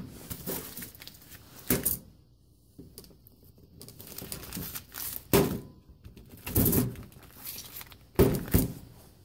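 Plastic parts bags holding transmission seals and bearings being handled on a table: crinkling and rustling in several short bursts, with light knocks as the packages are moved and picked up.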